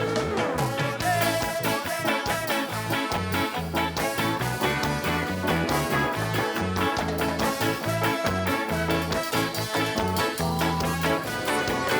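Live band playing an upbeat instrumental passage with a steady beat, busy bass and horns.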